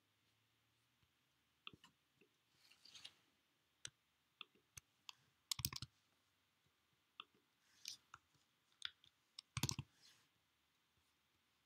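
Scattered clicks and keystrokes from a computer keyboard and mouse during code editing, with two quick runs of taps about halfway through and near the end, over near-silent room tone.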